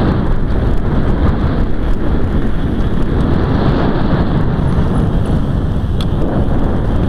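Wind buffeting the microphone of a camera on a moving recumbent trike, with tyre and road rumble, as a steady loud rush. There is a single sharp tick about six seconds in, as the trike rolls onto a curb ramp.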